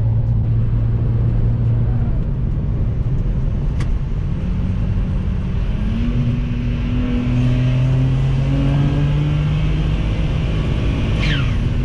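Tuned BMW N54 twin-turbo straight-six running under way, a steady engine drone that shifts pitch a few times as the revs change, with a brief falling whistle near the end.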